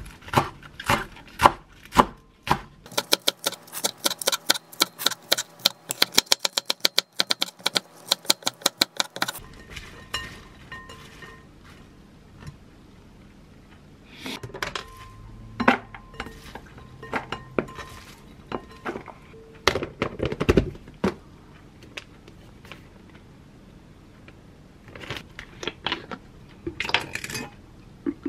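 Chef's knife chopping large green onion on a wooden cutting board: spaced chops at first, then a fast, even run of chops lasting about six seconds. After that come scattered knocks and clatter as the chopped onion is handled in a glass bowl.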